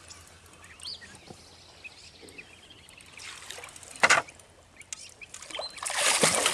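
Faint bird chirps, a short loud splash about four seconds in, then splashing that builds up near the end as a hooked channel catfish thrashes at the water's surface.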